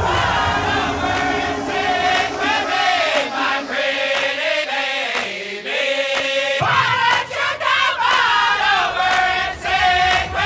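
Dance music with a sung melody and a crowd of voices singing along. The bass and beat thin out for a few seconds in the middle and come back in hard about two-thirds of the way through.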